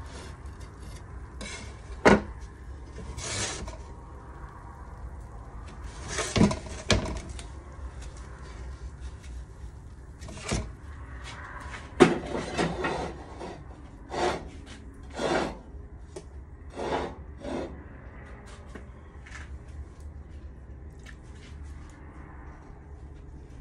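A scattered series of sharp knocks, clanks and short scrapes of a metal pan and tools being handled and set down, the loudest about two seconds in and again about twelve seconds in, over a steady low rumble.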